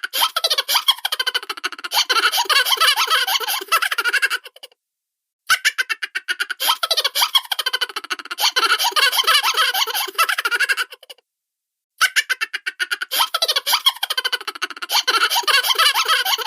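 Cartoon laughter sound effect: rapid, high-pitched stuttering giggles and chuckles. The same clip repeats, broken by a second of silence about four and a half seconds in and again about eleven seconds in.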